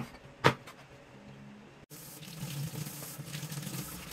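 Two cleaver chops through raw chicken on a cutting board, then from about two seconds in a kitchen tap runs steadily, splashing over hands.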